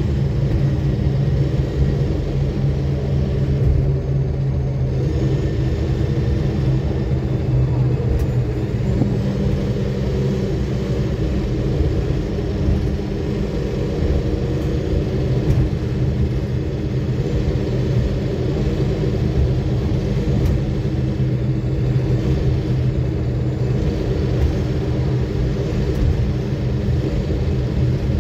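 Inside a 2009 Nova Bus city bus cruising at steady speed: a constant low drone of the diesel engine and road noise, with no sudden events.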